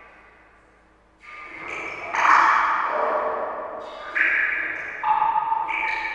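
Water drops falling one by one into water, each a short ringing plink that dies away; about half a dozen land after a quiet first second, some overlapping.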